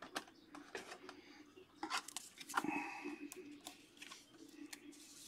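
Trading cards and hard plastic top loaders being handled: a run of light clicks, taps and short sliding scrapes, busiest and loudest about two to three seconds in.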